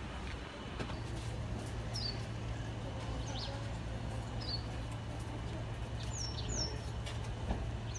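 Several short, high bird chirps, some sliding down in pitch, about one every second or so, over a steady low hum that comes in about a second in.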